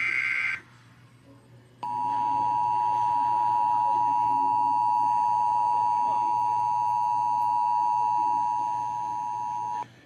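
Emergency Alert System broadcast tones: the end of a screeching SAME digital header burst about half a second in, then after a short pause the steady two-tone EAS attention signal (853 and 960 Hz) for about eight seconds. It heralds a National Weather Service severe thunderstorm warning.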